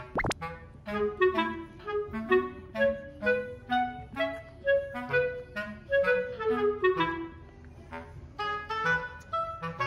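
Background music: a light, bouncy tune of short notes led by a woodwind, heard as a clarinet. Right at the start a quick rising whistle-like effect sweeps up.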